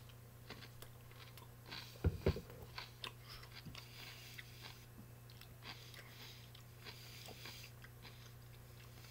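A crunchy gherkin (Hengstenberg Hot & Spicy) being bitten and chewed. A louder crunch comes about two seconds in, followed by faint, irregular chewing crunches.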